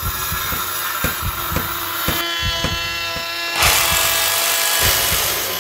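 Electric circular saw's motor running with a steady whine, then, about three and a half seconds in, a trimmer router cutting wood with a louder, rougher hiss, over a series of low thumps.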